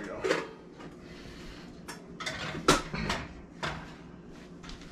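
Metal muffin tin set onto an oven rack and the rack handled: a series of short metallic clanks and knocks, the loudest about halfway through.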